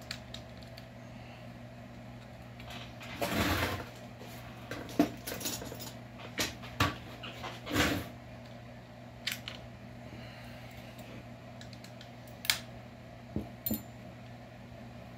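Hand tools and small metal parts clicking and clinking on a workbench during hands-on chainsaw disassembly with a T-handle hex wrench: a short scrape about three seconds in, then scattered single knocks and clicks, over a steady low hum.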